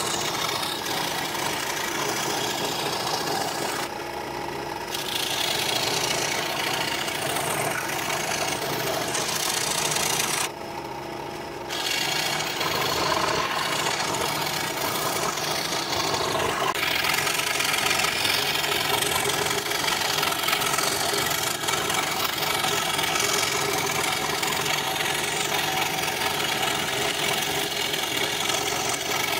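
Scroll saw running, its reciprocating blade cutting a curved line through a thin wood panel. The cutting sound drops off briefly about four seconds in and again about eleven seconds in, then carries on.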